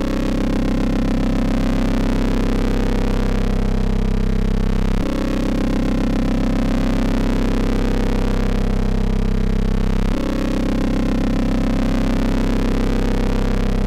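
Eurorack modular synthesizer playing a steady low drone with many overtones: a wave-spliced, partly rectified sine from Rossum Trident oscillators through a Future Sound Systems Recombination Engine. Its timbre shifts abruptly about five seconds in and again about ten seconds in while the pitch holds.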